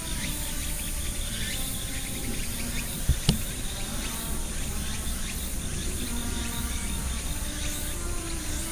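Insects chirring steadily in the surrounding vegetation, with two short sharp knocks about three seconds in.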